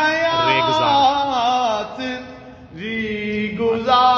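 A man chanting a naat, an Urdu devotional poem, drawing out long wavering held notes. The voice fades briefly about halfway through, then comes back on a new held note.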